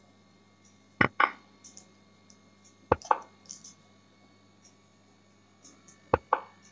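Three pairs of sharp clicks as chess moves are played in an online blitz game, the two clicks of each pair about a fifth of a second apart, over a low steady hum.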